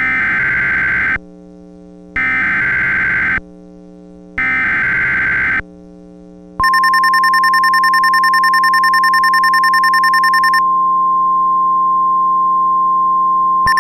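NOAA Weather Radio Emergency Alert System (SAME) header: three roughly one-second bursts of buzzing digital data tones with short gaps, then the steady 1050 Hz weather radio warning alarm tone starts about six and a half seconds in. A fast-pulsing higher beep rides over the tone for its first four seconds and starts again near the end. The sequence marks the start of a new warning broadcast, here a severe thunderstorm warning.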